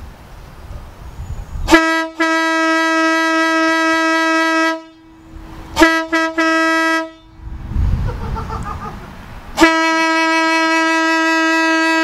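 Cheap electric air horn on a Ford truck blasting: a long single-pitched blast about two seconds in, three quick toots around the middle, then another long blast near the end. Loud and obnoxious.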